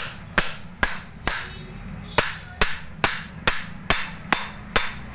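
A hammer striking the seized part of a rickshaw self-starter motor, about eleven sharp metal blows a little under half a second apart, with one short pause about a second and a half in. It is knocking loose a part jammed by a broken bearing.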